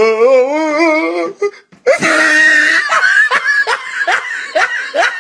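A person laughing. It opens with a long wavering drawn-out note, then about two seconds in breaks into a run of short rhythmic laughs, about three a second.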